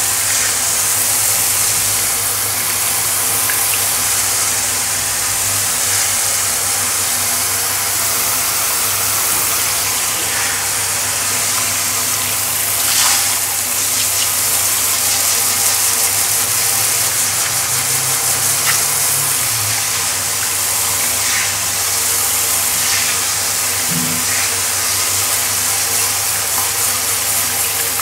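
Handheld dog-grooming shower head spraying water onto a tiled floor: a steady, unbroken hiss of spray.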